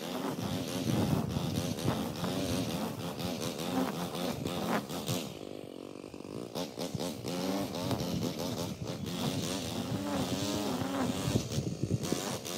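Zero-turn lawn mower engine running, its pitch wavering up and down, briefly quieter about halfway through.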